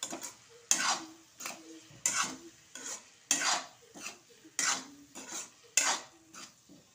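Metal spatula stirring and scraping diced potatoes, tomato and sago pearls around a metal kadhai, in short regular strokes about one every two-thirds of a second.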